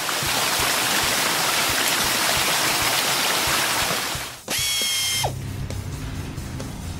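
Cartoon car-wash water jets spraying: a loud steady hiss for about four and a half seconds. It stops, a short high tone follows and drops in pitch as it ends, then a quieter low hum.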